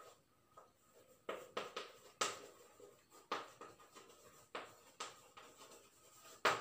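Chalk writing on a blackboard: a run of short, irregular taps and scrapes as the chalk strikes and drags across the board to form letters.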